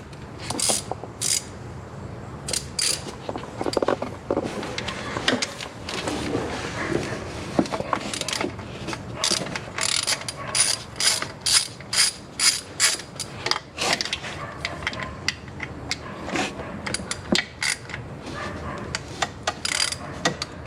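Hand ratchet with an extension clicking in repeated back-and-forth strokes, loosening the bolts that hold a thermostat housing in. The clicking comes in runs, quickest and loudest in the middle.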